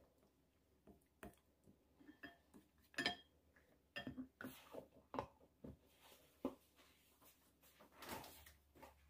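Faint scattered knocks, scrapes and clinks of wooden spoons against a glass mixing bowl while a thick chili-paste sauce is stirred and mashed. A sharper clink with a brief ring comes about three seconds in.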